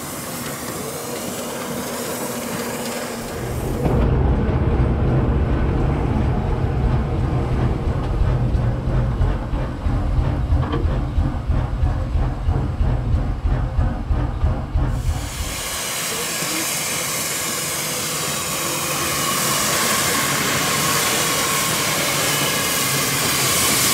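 Small steam tank locomotive: a heavy low rumble of the engine at work on the rails, changing about two-thirds of the way through to a steady, loud hiss of escaping steam.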